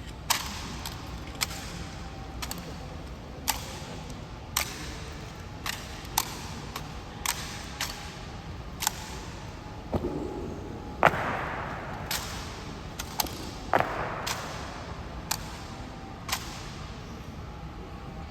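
Honor guard rifle drill: sharp strikes of rifle butts and stamping boot heels on the stone floor, about one a second, the two loudest near the middle ringing on in the hall.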